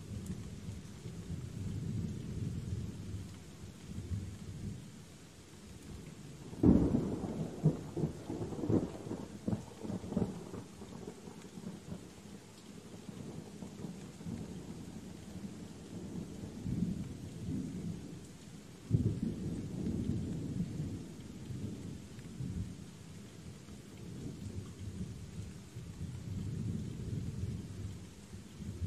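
Steady rain with low rolling thunder. A sharp thunderclap comes about a quarter of the way in and rumbles on for several seconds, and a second clap about two-thirds of the way through.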